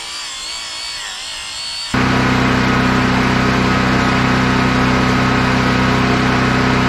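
A faint high whine wavering in pitch, then about two seconds in an abrupt switch to an engine running steadily at idle, much louder.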